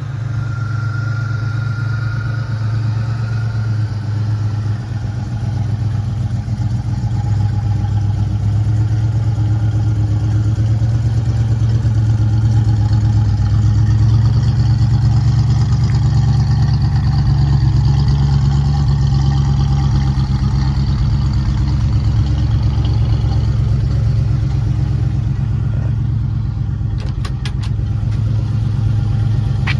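1968 Mercury Cougar's 302 cubic-inch V8 idling steadily, its exhaust note holding an even pitch.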